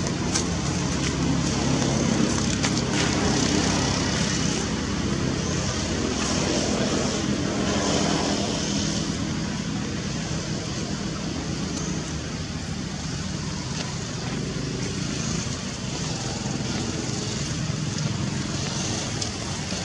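Steady outdoor background noise: a low rumble with a high hiss above it, and no distinct calls or knocks.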